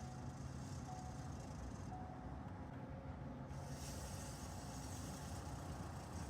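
2015 Ford F-150 engine running steadily with a low rumble, the noise that appeared after its exhaust manifold gasket was replaced, cause unknown to the owner. A short faint tone repeats about once a second over the first couple of seconds.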